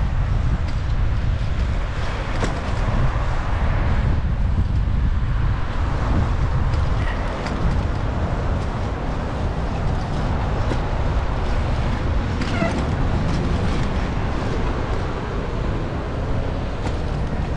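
Steady low rumble of wind on the microphone mixed with city street and traffic noise, heard from a moving bicycle. Scattered light clicks and a couple of brief high chirps come through, about seven seconds in and again past twelve seconds.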